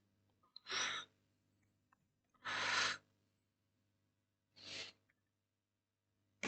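A person breathing out three times, short sighing exhales about two seconds apart, the middle one the loudest.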